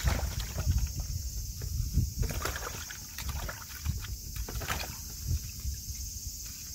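Water splashing and sloshing in a plastic bucket as a wet-sanding pad is rinsed, in short irregular strokes, over a low rumble on the microphone.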